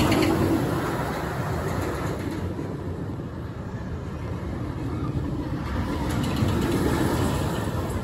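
RMC I-Box hybrid roller coaster train rumbling along its steel track on the wooden structure as it passes, the rumble easing off a few seconds in and building again near the end.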